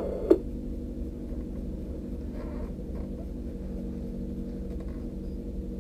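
Steady low mechanical hum inside a stationary race car's cockpit, with a single short click of the team radio cutting out just after the start.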